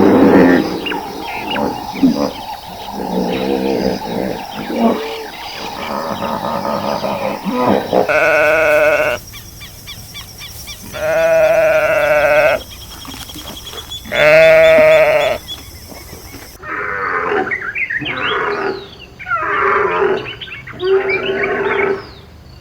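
Sheep bleating: a busy overlap of calls, then three long, wavering bleats, each about a second and a half long, then a flurry of shorter overlapping bleats near the end.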